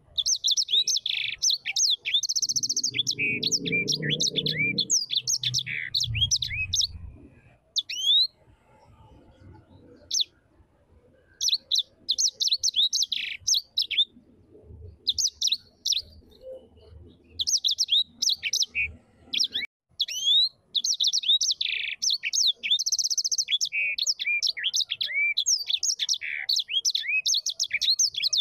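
Bird singing a fast, varied song of chirps, trills and whistled glides in repeated phrases, with short pauses between them. A brief low rumble sounds underneath a few seconds in.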